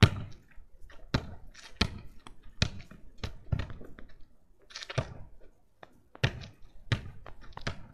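A football thudding again and again as it is bounced on the ground and kicked against a wall. There are about nine sharp thuds at uneven gaps of roughly a second.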